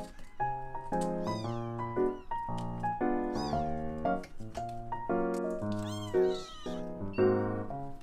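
Kittens mewing: several high, thin calls that fall in pitch, over background music.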